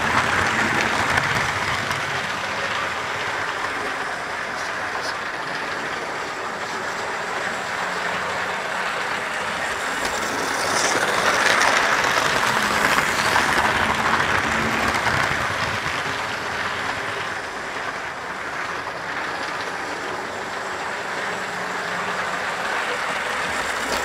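Model railway diesel trains running past on the track close by: a steady rolling rattle of small wheels on rail with motor hum, growing louder about halfway through as a train passes.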